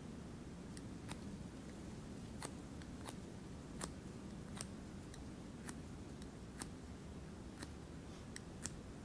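A ferro rod struck with a scraper over a tinder bundle to throw sparks for a fire: a dozen or so short, sharp scrapes at irregular intervals of about half a second to a second.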